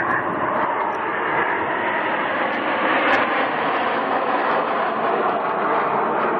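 Aircraft engine noise at an airshow, a steady, loud rushing that holds fairly level.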